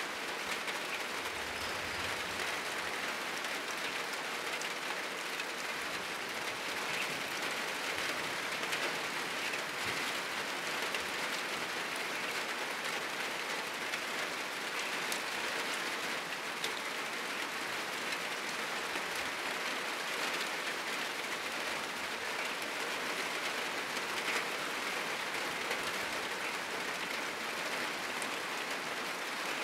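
Heavy rain falling steadily on a roof: a dense, even patter with scattered louder drops.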